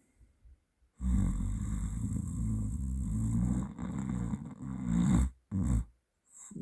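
A person snoring in their sleep: one long, loud snore starting about a second in and lasting about four seconds, followed by a brief shorter one.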